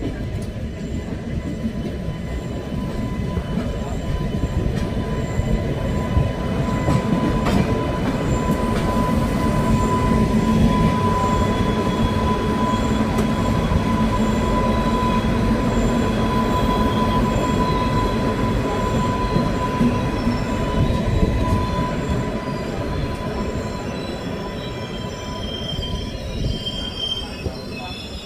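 Train running on the rails with a dense, steady rumble that grows louder, holds, and then eases toward the end. Through the loudest stretch a steady high-pitched whine sounds over it.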